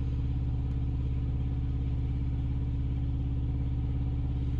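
Diesel engine idling steadily: a low, even drone that does not change.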